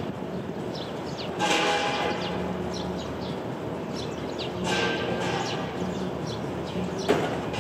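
Eurasian tree sparrows chirping: short, high, downward chirps repeated through, over a steady city background. Two louder swells of passing street noise, each with a faint tone in it, come about a second and a half in and near the five-second mark, and a sharp knock sounds near the end.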